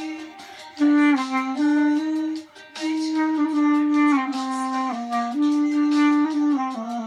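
Solo clarinet playing a slow melody, with short breaths between phrases, one about half a second in and one about two and a half seconds in.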